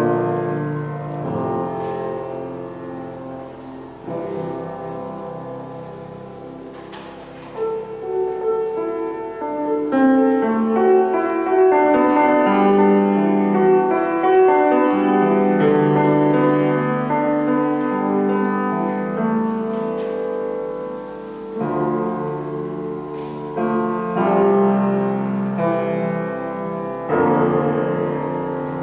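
Solo piano music, playing a slow, melodic passage that grows louder about ten seconds in.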